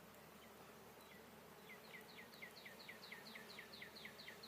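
Faint steady hum of honey bees around an open hive. From about a second in, a bird sings a rapid run of high, down-slurred notes, about four a second.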